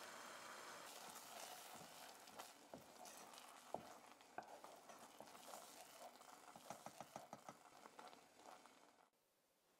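Faint stirring of rice cooking in water in a pot with a wooden spoon: soft scrapes and many small knocks of the spoon against the pan, over bubbling, stopping about a second before the end. A steady hiss fills the first second.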